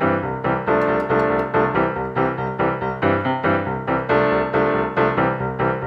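Background piano music with a steady pulse of notes, about four a second.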